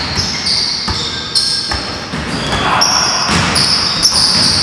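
A basketball dribbled on a hardwood gym floor, with short high squeaks of basketball sneakers as the players cut and plant.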